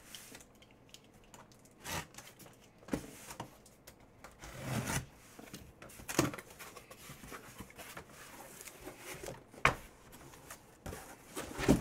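Cardboard shipping case of hobby card boxes being handled and opened: scattered rubs, scrapes and light knocks, with a longer rustling scrape about five seconds in.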